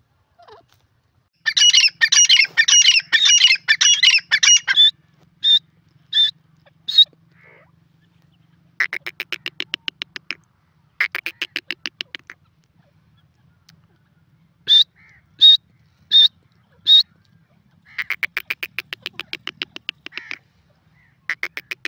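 Grey francolin calling. A loud burst of overlapping rapid calls is followed by short series of single sharp, high notes, three and then four in a row, alternating with several fast rattling trills of many quick pulses.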